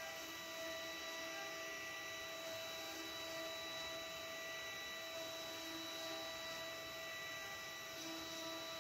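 CNC router spindle running steadily as it carves a design into a wooden board, giving a constant high-pitched whine with several held tones over a steady hiss of cutting and machine noise.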